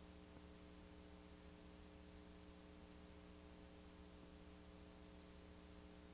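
Near silence: a faint steady electrical hum under an even hiss, unchanging throughout.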